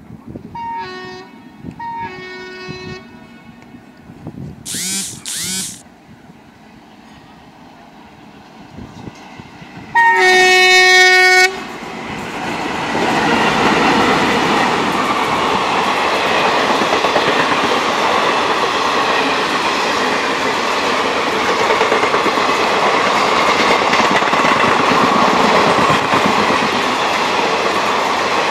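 Indian express train hauled by twin Alco diesel locomotives approaching and passing close by. Two short horn notes sound early, two brief high chirps come about five seconds in, and about ten seconds in a loud horn blast lasts a second and a half. After that the diesel locomotives and coaches go past with a steady rumble and wheel clatter.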